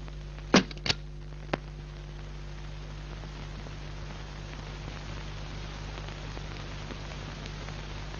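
Three sharp knocks or clicks in the first second and a half, the first the loudest, then only the steady hiss and low hum of an old film soundtrack.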